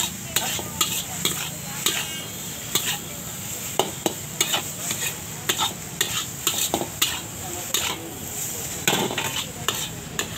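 Metal spatula scraping and clanking against a large steel wok as egg noodles are stir-fried, in irregular strokes a few times a second, over a steady sizzle of frying.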